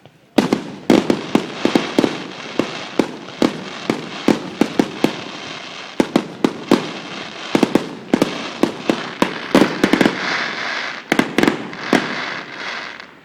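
Aerial fireworks going off in a rapid barrage, several loud bangs a second, with a crackling hiss building under the bangs about three-quarters of the way through. The barrage starts suddenly just after the start.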